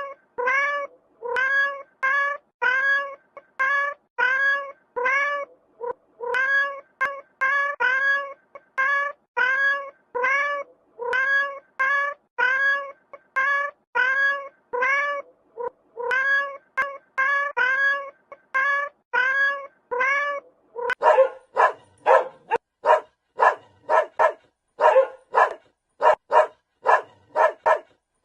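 A cat meowing in short, identical calls, about two a second, over and over. About 21 seconds in, it gives way to a dog barking in quick, sharp barks.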